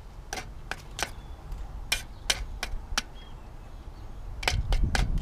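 Metal spoon clinking and scraping against the side of a camping-stove pan while stirring baked beans: a string of sharp, irregular clinks. A low rumble swells near the end.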